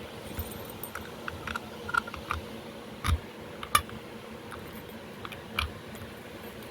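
Scattered clicks and clacks from a Notifier BNG1 fire alarm pull station being reset with its key, with two louder clacks about three seconds in and another a little later.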